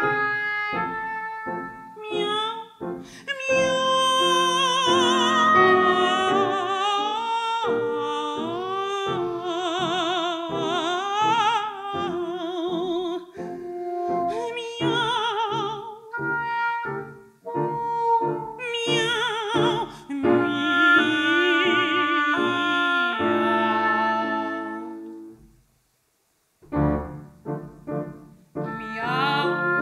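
Mezzo-soprano singing a comic cat song in mock cat language, with strong vibrato, accompanied by piano, bassoon and oboe playing short detached chords. The music stops briefly about 26 seconds in, then the detached chords start again.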